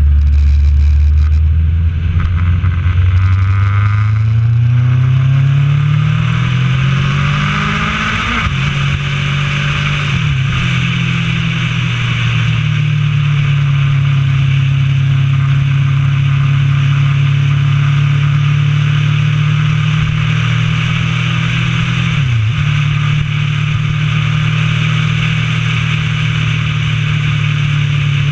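Honda CB1000R inline-four engine accelerating with its pitch climbing for the first eight seconds, dropping sharply at a gear change, then running steadily at cruising speed. Wind rushes over the microphone throughout.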